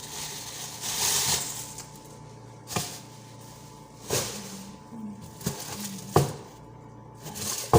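Rustling and handling of vegetables and their packaging, in short bursts about every second or so, with a few sharp knocks, the loudest near the end.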